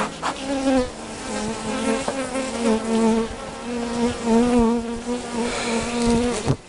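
Honeybees buzzing close around an open top bar hive, a steady buzz whose pitch wavers up and down as the bees fly about.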